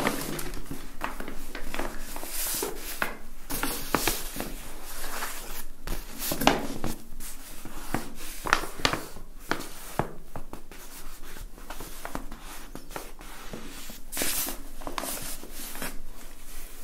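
Brown kraft paper shopping bag rustling and crinkling as it is handled close to the microphone, in irregular scratchy rustles.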